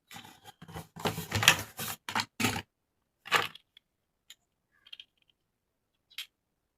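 Plastic toy parts and packaging being handled during an unboxing: about two and a half seconds of rustling and clattering, a louder clack a little over three seconds in, then a few faint clicks.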